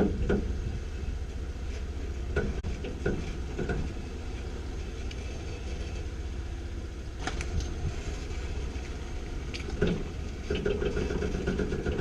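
A vehicle engine running with a steady low rumble, with scattered sharp knocks and clicks over it and a rattle near the end.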